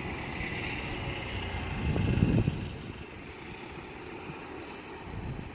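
Thunder rumbling, swelling to a loud peak about two seconds in and then dying away.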